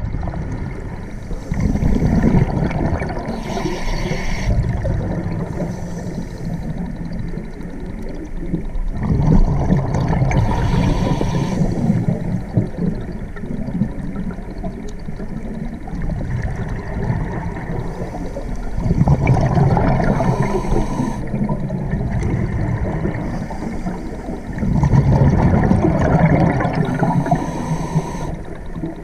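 Scuba diver breathing through a regulator underwater, the bubbling exhaust coming in four surges several seconds apart over a constant wash of water noise.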